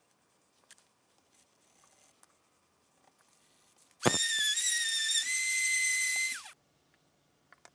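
Electric random orbital sander run on the bare wood of the saw table: a loud high whine, starting suddenly about four seconds in, wavering and stepping up slightly in pitch for about two and a half seconds, then falling away as the motor spins down.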